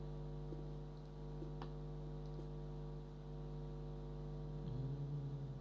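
Steady electrical mains hum from the recording setup, with a few faint computer-mouse clicks. Near the end comes a brief low tone that rises and falls.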